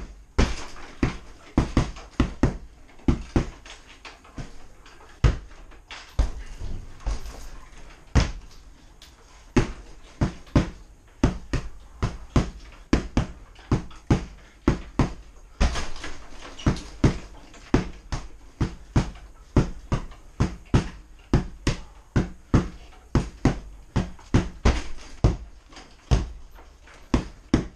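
Repeated strikes landing on a hanging punching bag, each a sharp smack with a dull thud, about two a second; uneven bunches in the first half, a steadier beat later on.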